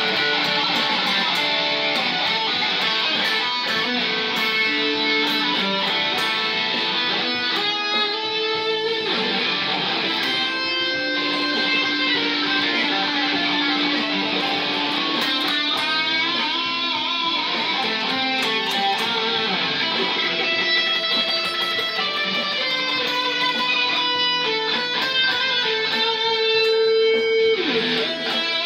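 Les Paul electric guitar playing a blues solo, with held notes and notes that bend and waver in pitch.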